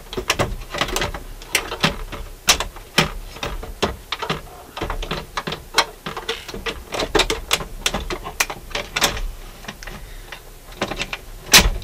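Irregular clicks, taps and light clatter of a Dual 1228 turntable's metal mechanism being handled and worked by hand, with a sharper knock near the end.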